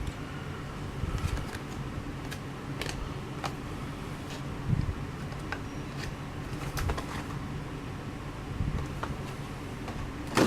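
Scattered light clicks and taps from handling carded diecast toy cars and their plastic-and-card packaging, with a sharper knock near the end, over a steady low hum like a fan or air conditioner.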